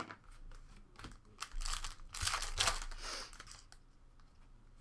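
Trading card pack wrapper crinkling and tearing while cards are handled, with small clicks and a dense burst of rustling in the middle.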